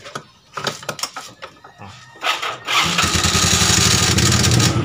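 Light metallic clicks and taps as a motorcycle clutch basket is worked by hand onto its shaft. About two and a half seconds in, an engine starts up and runs steadily, the loudest sound.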